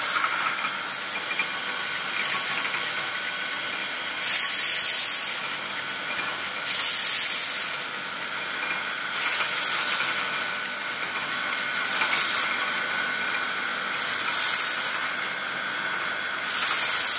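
Electric eri silk spinning machine running: a steady motor hum with the rattle of its gears and spindle as fibre is spun onto the bobbin, swelling into a louder, hissier rattle for about a second every two to three seconds.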